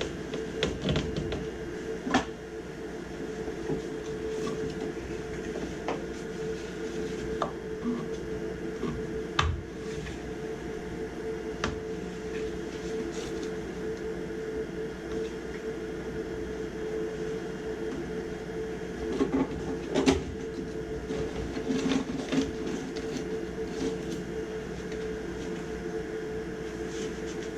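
A steady mechanical hum with scattered clicks and knocks, the loudest knock about twenty seconds in.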